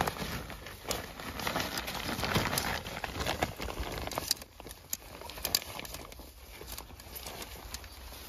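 Rustling of a collapsible nylon mesh keepnet and the clicks and knocks of its hoop rings and metal stake as it is handled and a caught carp is put into it.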